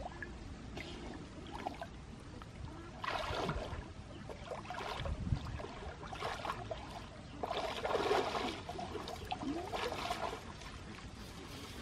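Pond water sloshing and splashing in irregular bursts as a person wades through it, chest-deep.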